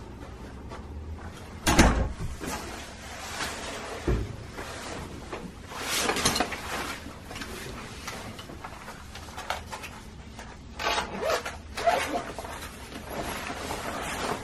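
Camera gear and bags being handled and set down: a sharp knock about two seconds in, a low thump about two seconds later, then bursts of nylon bag and jacket rustling.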